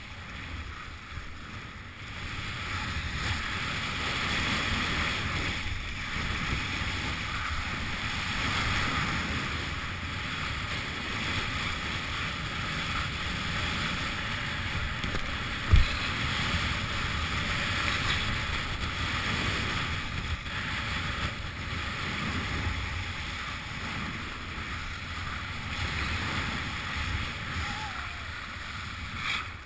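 Skis sliding and carving over hard-packed groomed snow, a steady scraping hiss, with wind buffeting the microphone. A single sharp thump about halfway through.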